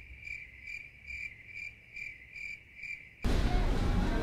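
Crickets-chirping sound effect: an even, high chirp repeating about two and a half times a second, the stock gag for an awkward silence. It cuts off abruptly about three seconds in, giving way to restaurant background noise.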